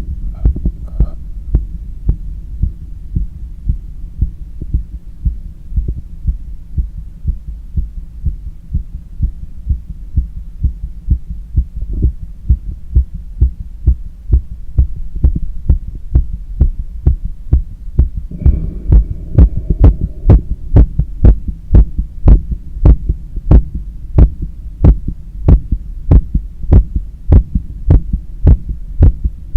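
A human heartbeat heard through a stethoscope on the chest after a long run, in regular low thumps over a steady low hum. About two-thirds of the way through there is a brief rustle, and after it the beats come through louder and sharper.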